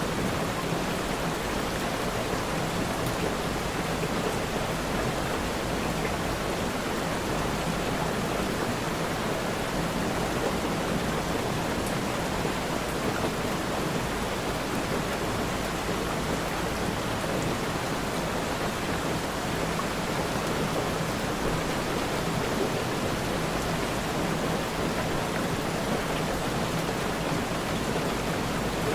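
Steady rainfall, an even, unbroken hiss of rain.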